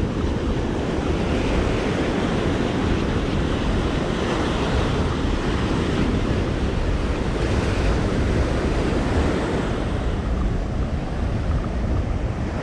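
Ocean surf breaking and washing up on a sandy beach, a steady rush, with wind buffeting the microphone.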